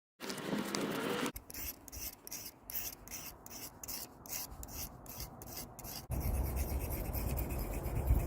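Hand rasping or filing strokes, a steady back-and-forth scrape about three times a second. About six seconds in it gives way to a steady low rumble.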